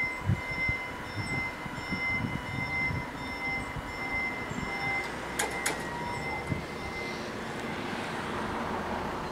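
Electronic level-crossing bells ringing in a steady repeated tone, fading out about seven seconds in, with two sharp clicks a little after halfway. Near the end a rushing noise of the approaching train grows.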